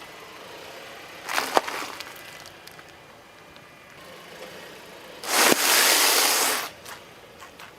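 A car tyre crushing objects: a short crunch with a sharp crack about a second and a half in, then a sharp pop followed by a loud rush lasting over a second.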